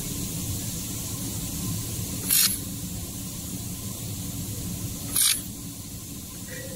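Handheld laser welder firing two short tack welds on 1 mm stainless steel, each a brief hissing burst about three seconds apart, over a steady low hum.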